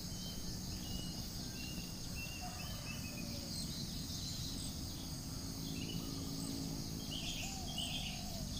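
Steady high-pitched drone of crickets, with short bird chirps scattered through it.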